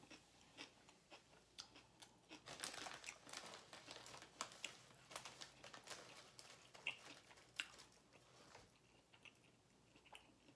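Faint close-up chewing of a mouthful of a cheesesteak sub: a run of small mouth clicks and crackles, busiest from a couple of seconds in to about five seconds, then sparser.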